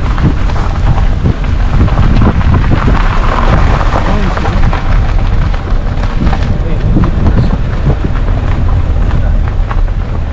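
Wind buffeting the camera microphone: a loud, gusty rumble that rises and falls throughout, with scattered crackles.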